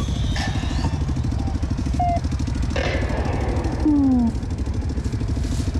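ATV engines idling with a steady, rapid low pulse. A brief, louder falling tone about four seconds in.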